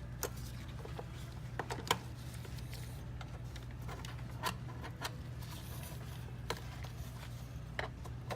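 Scattered small clicks and ticks of plastic locking tabs on a car navigation unit's faceplate being pried up with a tool, a handful spread irregularly over several seconds, over a steady low hum.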